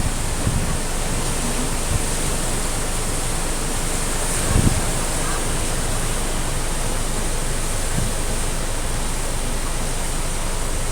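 A steady, even rushing noise, with a short low thump about four and a half seconds in.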